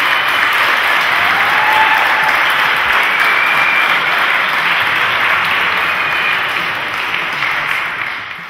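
A crowd applauding, the clapping fading out near the end.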